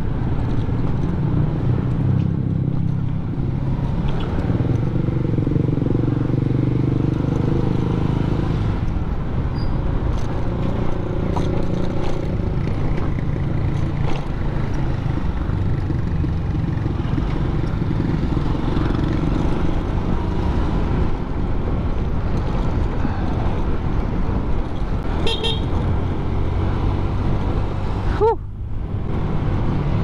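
Honda Click 125i scooter under way, its single-cylinder four-stroke engine humming steadily under road and wind noise. A short horn toot sounds about 25 seconds in.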